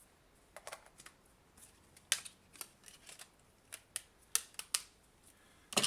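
A run of separate light clicks and taps as a phone screen-opening tool and its parts are handled and put back, hard plastic and metal knocking together.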